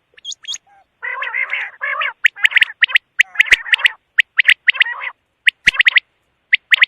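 Quail calling: a harsh, buzzy chatter about a second in, then a run of short, sharp, high-pitched notes delivered in quick clusters of two or three.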